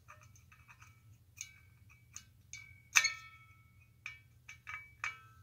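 A scattered series of light metallic clicks and clinks as a small screwdriver works the screw on a lamp socket seated inside a nickel-plated metal shade. The shade rings briefly after the harder taps, with the loudest clink about three seconds in.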